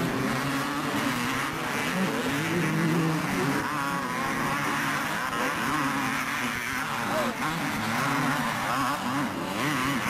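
250cc two-stroke motocross bikes racing, their engines revving up and down in pitch with the throttle, more than one bike heard at once.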